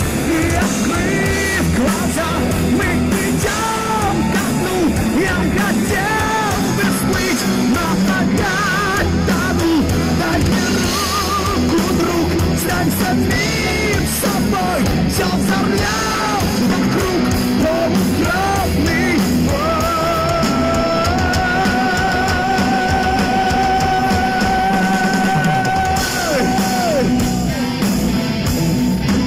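Live heavy rock band playing at full volume: distorted electric guitars, bass and drum kit, with a lead line of bending notes and a long held high note from about two-thirds of the way in.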